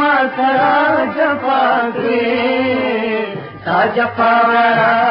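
A man singing a Pashto song in a chant-like melodic line over instrumental accompaniment. There is a short break between phrases about three and a half seconds in.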